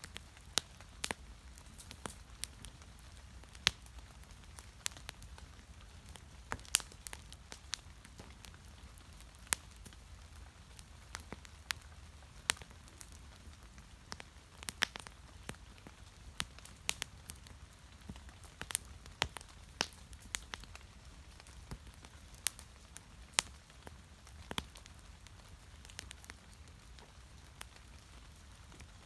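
Wood fire crackling: irregular sharp pops and snaps, one or two a second, over a steady low rumble.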